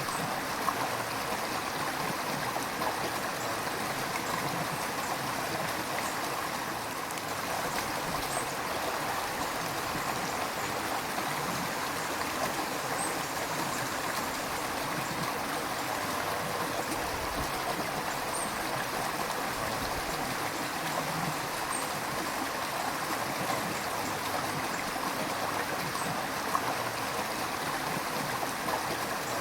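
River water flowing over stones, a steady rushing and babbling with small splashes here and there.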